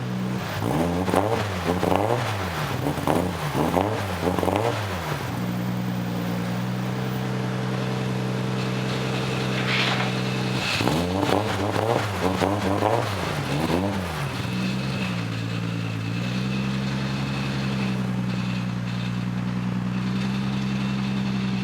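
Lexus SC300's 3.0-litre inline-six idling, revved up and down several times in quick succession in two bouts, the first right at the start and the second about halfway through, settling back to a steady idle in between.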